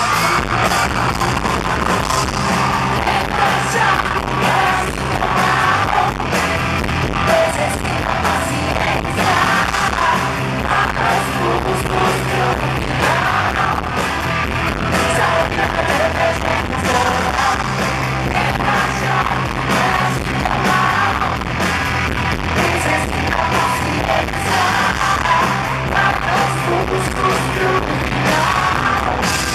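A rock band playing live, with a woman singing lead in Portuguese into a handheld microphone.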